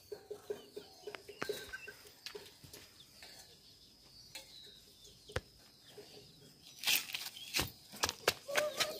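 Scattered soft clicks and knocks, with a faint steady high whine underneath; near the end a quick run of sharper knocks, and a chicken starts clucking at the very end.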